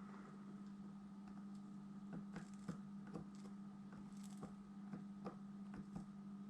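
Faint scattered ticks and light taps of hand soldering on a circuit board, over a steady low hum.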